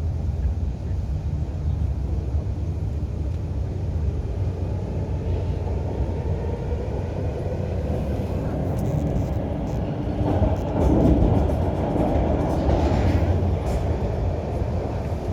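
MTR Kwun Tong Line Q-Train running on the line, a steady low rumble of wheels and running gear. It swells louder about ten seconds in, with a rushing noise and a few clicks.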